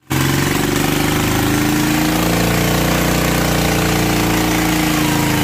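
Rebuilt Kubota RT110 single-cylinder diesel engine, bored up to RT155 size, running steadily with an even, unchanging note.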